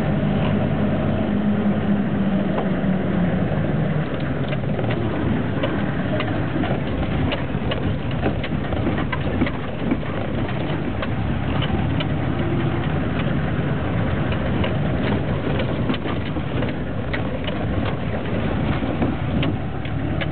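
Motor vehicle's engine running steadily while driving over an unpaved, rocky road, heard from inside the vehicle, with frequent clicks and rattles from the rough surface.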